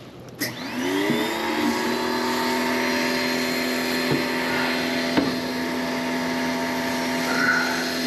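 Electric pressure washer starting up about half a second in: its motor spins up within a second and then runs steadily with a hum while it sprays coil cleaner onto an air-conditioner evaporator coil.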